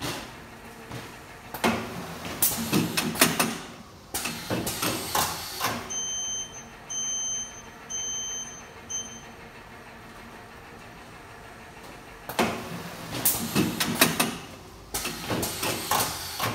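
YAC Japan YPG 500A automatic garment folding machine running its folding cycle: two bouts of rapid mechanical clacking and knocking from its moving folding plates, with a run of about four short, high electronic beeps from the machine in the pause between them.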